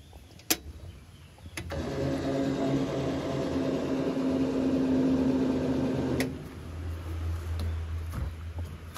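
A small motor running with a steady hum that starts about one and a half seconds in and cuts off abruptly with a click about four and a half seconds later. A low steady hum continues underneath, with a couple of sharp clicks before the motor starts.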